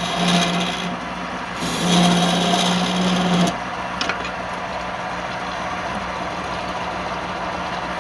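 Wood lathe running with a steady motor hum while a turning tool scrapes and cuts the spinning wood in two passes. At about three and a half seconds the cutting stops abruptly, leaving only the lathe's hum and a single click soon after.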